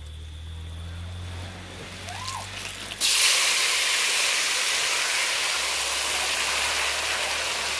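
Seasoned chicken pieces dropped into hot oil with curry and garlic in a pot over a wood fire, setting off a loud, steady sizzle that starts suddenly about three seconds in.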